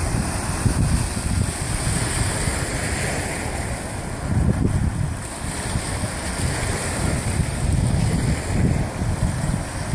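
Lake Ontario waves washing against the shore, with gusty wind buffeting the phone's microphone in an uneven low rumble.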